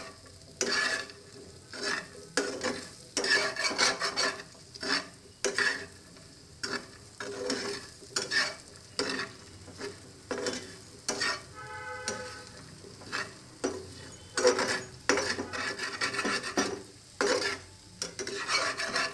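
A spatula stirring and scraping diced purple yam frying in oil in a pan, in repeated irregular strokes over a light sizzle.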